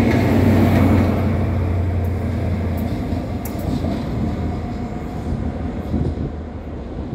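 Class 43 HST power car diesel engine running under power as the train departs: a steady low drone that slowly fades as it draws away.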